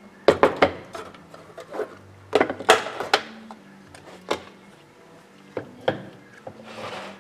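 Wooden blocks being handled and set down on a wooden bench: a run of sharp wooden knocks and clacks in several clusters, then a short scrape near the end.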